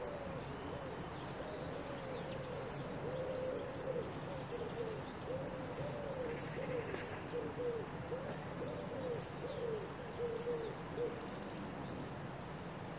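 A bird calling in a long run of low, soft cooing notes, about two a second, that stops near the end, with faint chirps of other birds higher up.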